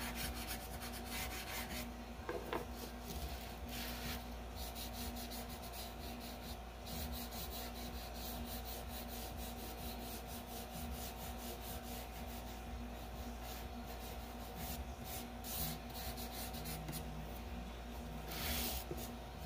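Green chalk pastel being stroked along paper and fingers rubbing over it to blend the stem: a run of soft, irregular scratchy strokes.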